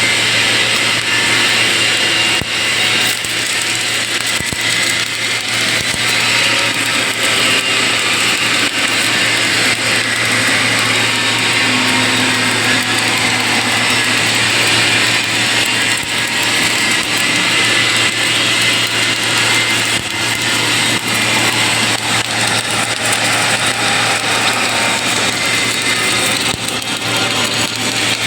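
Automatic submerged arc pipe welding machine running: a steady low hum under a loud, even hiss.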